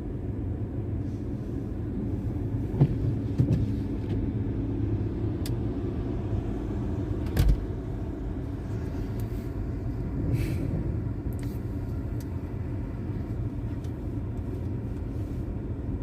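Steady low rumble of heavy vehicle engines as road graders pile snow just ahead. A few short knocks come about three seconds in, and a louder one at about seven and a half seconds.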